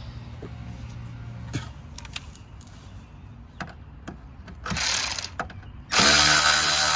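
Cordless right-angle power driver spinning out the fender liner's screws: a few light clicks as the socket is fitted, a short whir about five seconds in, then a longer loud run from about six seconds in.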